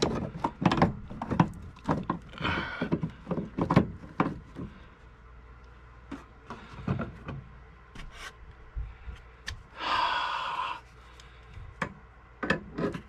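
An adjustable wrench clinking and knocking against brass compression fittings and copper pipe as the fittings are worked tighter, with a short rush of noise about ten seconds in.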